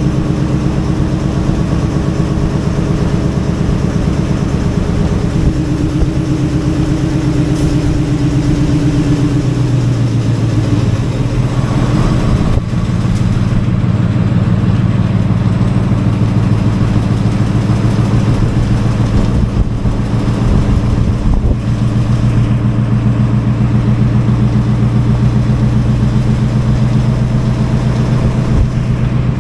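Diesel locomotive engine running steadily, its note changing about ten seconds in and then holding.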